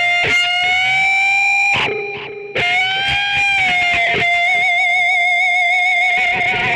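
Electric guitar playing a slow lead line of long held notes with bends and wide vibrato. About two seconds in it fades briefly, then a freshly struck note picks the line up again.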